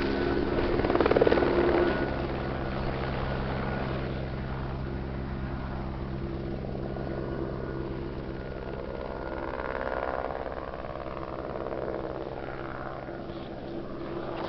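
Eurocopter AS350 B2 helicopter running, its turbine and rotor making a steady drone. It is louder for the first couple of seconds, then settles to an even level.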